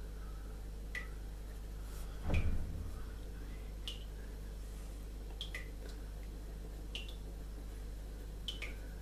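Graphite pencil hatching on smooth drawing paper: short, quick scratchy strokes at irregular intervals, about one a second, with a louder low thump about two seconds in, over a steady low hum.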